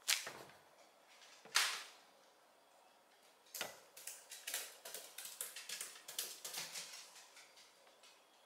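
Empty plastic ice-cream wrapper crinkling: two sharp crinkles as it is shaken by hand, then a quick, irregular run of crinkles and rustles for about four seconds as a small dog grabs it and carries it in her mouth.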